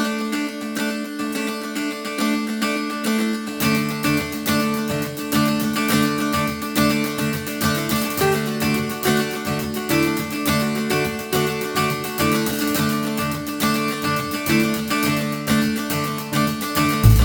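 Intro music: picked acoustic guitar, joined by a bass line about three and a half seconds in.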